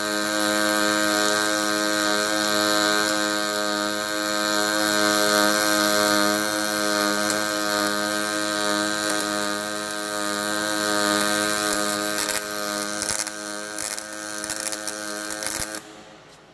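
Hydraulic cylinder welding machine running through a weld: a steady hum over a hiss, with a few sharp crackles in the last few seconds, cutting off abruptly about a second before the end.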